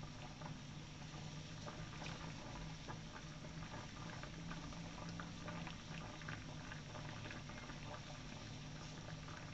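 Saucepan of water at a rolling boil on a gas stove with bakso aci cooking in it: a faint, steady bubbling with many small pops.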